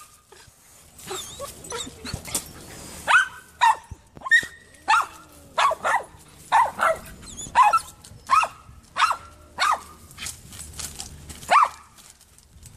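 Dog barking: a run of about fifteen short, sharp barks starting about three seconds in, mostly two a second, with a last bark after a short pause near the end.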